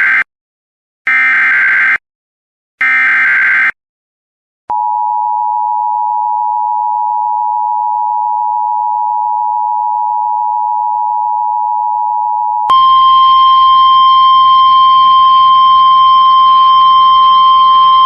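Emergency Alert System (EAS) alert tones. First come short bursts of the SAME digital header, harsh screechy data bursts (the end of one, then two more). About four seconds in, the two-tone EAS attention signal starts and holds steady for about eight seconds. Near the end, a single steady tone over radio static replaces it.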